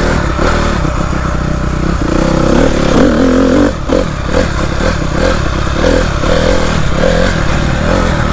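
A 2012 Honda CRF250R's single-cylinder four-stroke engine running as the dirt bike is ridden along a trail, its note rising and falling with the throttle. It gets a little louder about two seconds in.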